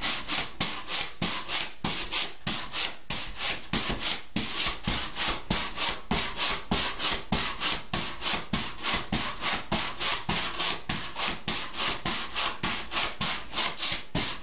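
Pogo stick bouncing steadily, its spring giving a rasping creak in an even rhythm of about four a second.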